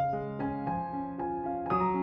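Background music: a gentle piano melody, single notes struck every half second or so and left to ring.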